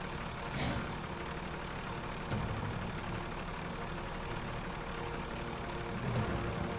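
Heavy truck engine idling steadily, with a few brief louder moments.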